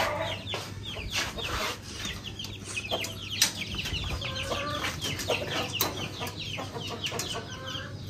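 Loose domestic chickens clucking, with many short, high, falling chirps repeating throughout. Scattered sharp metal clicks from wire cage doors and latches being opened, one louder knock about three and a half seconds in.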